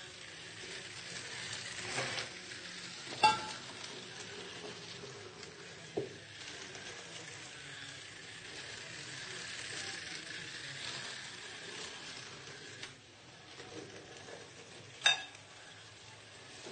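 Glass and ceramic tableware clinking as metal tongs and utensils serve food, with two sharp ringing clinks and a few softer knocks over a steady faint hiss.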